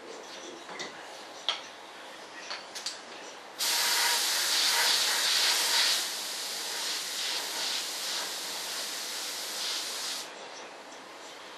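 Compressed-air paint spray gun hissing for about six and a half seconds, loudest for the first two seconds, then steadier and softer before cutting off suddenly. A few light clicks and knocks come before it.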